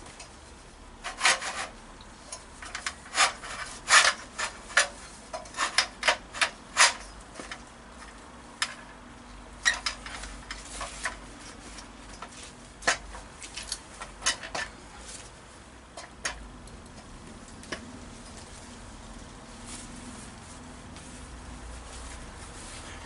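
A run of irregular sharp scrapes and clicks, like something being handled and rubbed, thickest in the first seven seconds and dying away after about sixteen seconds.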